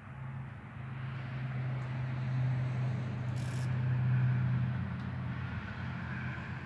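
Low engine hum of a motor vehicle, swelling to its loudest about four seconds in and then easing off, as a passing vehicle does.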